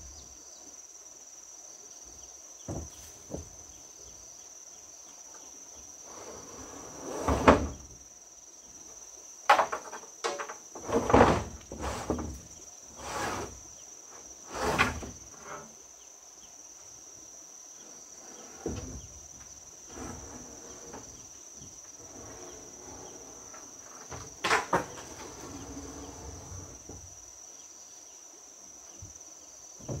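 Insects chirring steadily at a high pitch, with scattered knocks and clatters of objects being handled: a cluster of them in the middle and a couple more later.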